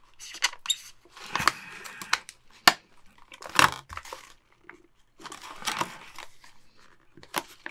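Rigid plastic clamshell packaging being cut and pried open with a knife. The plastic crackles and crinkles in irregular bursts, with sharp clicks and snaps.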